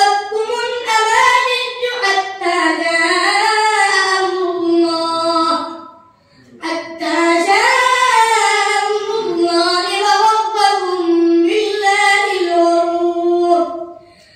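A boy's voice reciting the Quran in a melodic chant, drawing out long held notes that bend slowly up and down. Two long phrases, with a short pause for breath about six seconds in.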